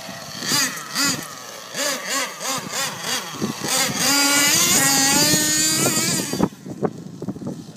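Nitro engine of a Thunder Tiger MTA Sledgehammer RC monster truck revving in short blips, then held at full throttle for about three seconds with its high whine climbing in pitch, cutting off sharply near the end, followed by scattered clicks.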